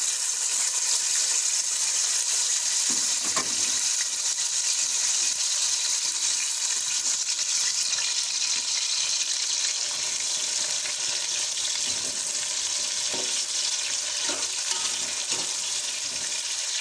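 Sliced onions sizzling in hot oil in a cooking pot: a steady frying hiss that starts as they are tipped in and eases a little near the end.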